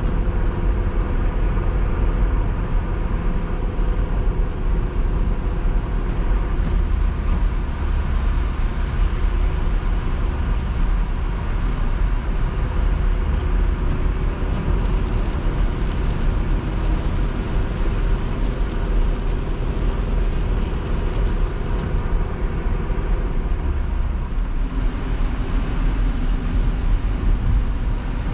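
A car driving along at a steady pace: constant road and engine noise with a deep rumble and a faint steady hum.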